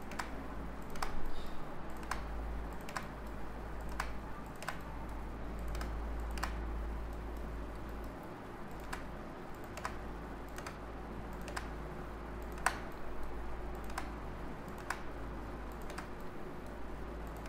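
Scattered single clicks of a computer mouse and keyboard, roughly one a second, over a low steady hum.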